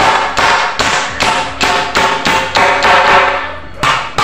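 Claw hammer driving a nail into the corner joint of a wooden door jamb: steady blows about three a second, each with a short metallic ring, with a brief pause near the end.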